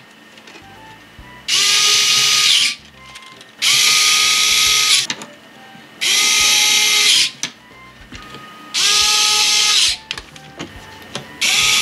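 Small electric screwdriver driving metal screws into motherboard standoffs, running in bursts of about a second each: four runs, with a fifth starting at the end. Each run rises to a steady whine and slides down as the motor stops.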